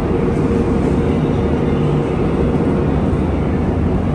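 Car ferry's engine machinery running: a steady, loud low drone with a constant hum.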